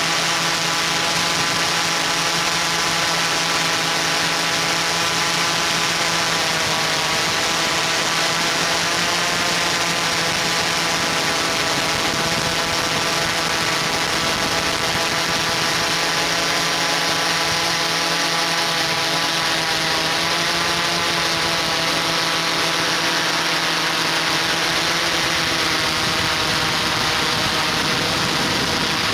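Multirotor camera drone's propellers and motors running in flight: a steady whine with a hiss of rotor wash, its pitch wavering slightly as the motor speeds change.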